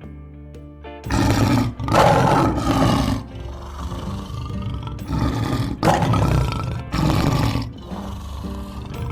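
Big cat roaring in a series of loud, rough bursts, starting about a second in, over background music.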